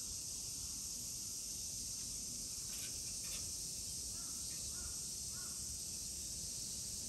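Crow giving three short caws about half a second apart, after two brief raspy sounds, over a steady high-pitched hiss.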